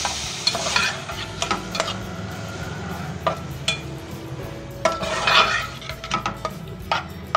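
A slotted metal spatula scraping and clicking against a metal frying pan as raw marinated chicken cubes are stirred in hot oil, with sharp clinks throughout and louder scraping and sizzling near the start and again about five seconds in.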